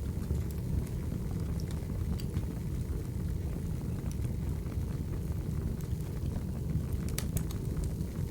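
Wood fire burning: a steady low rush of flames with scattered crackles and pops of burning firewood, several pops close together about seven seconds in.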